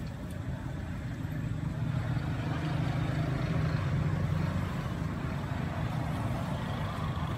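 A motor engine running with a steady low hum that grows louder about two seconds in and eases off a few seconds later.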